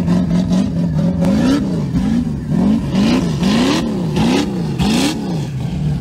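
Nissan Patrol's engine revved up and down over and over, its pitch rising and falling about twice a second, while the SUV spins its wheels in the sand.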